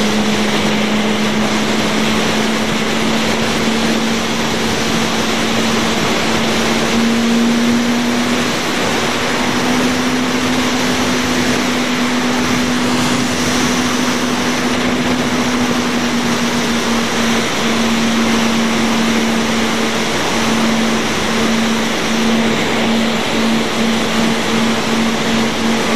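Yamaha R1 motorcycle's inline-four engine running at a steady highway cruise under a heavy rush of wind noise. The engine note holds one pitch, rising slightly about seven seconds in and wavering near the end.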